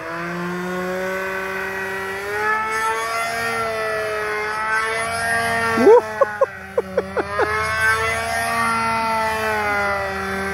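Nitro glow engine of an RC OMP Edge aerobatic plane running at high revs, rising gently in pitch over the first few seconds while the plane hangs nose-up on its propeller. About six seconds in comes a rapid series of six or seven sharp throttle blips, and then it settles back to steady running.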